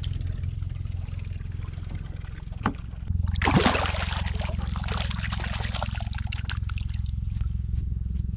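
Water splashing and dripping as a redfish is released by hand from a kayak, with a burst of splashing a little after three seconds. A steady low hum runs underneath.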